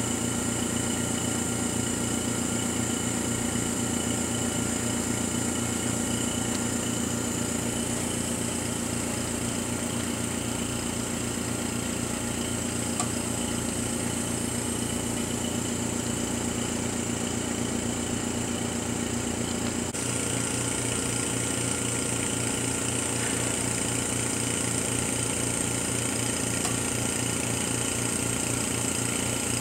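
Steady electrical and fan hum from a powered-up Karl Suss MJB3 mask aligner setup: a low drone with a faint high whine above it, changing slightly about twenty seconds in.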